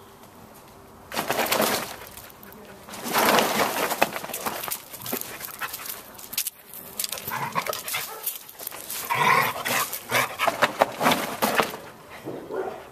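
Two dogs, a Border Collie mix and a mixed-breed, playing around a fabric agility tunnel: scuffling and rustling noises in several spells, the longest in the second half, with brief dog vocalisations.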